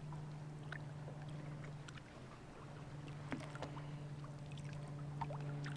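A small motor on the bass boat hums steadily, dropping out briefly about two seconds in, under faint splashes and knocks as a largemouth bass is released by hand over the side.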